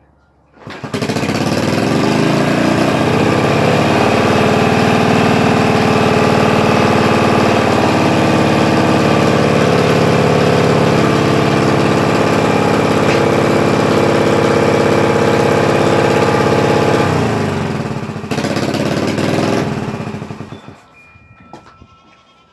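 Yamaha TT-R125's four-stroke single-cylinder engine starting up about a second in and running at a steady high idle, its exhaust leak patched with a metal strip and hose clamps; the high idle is put down by the owner to carburettor problems. The engine dies away near the end.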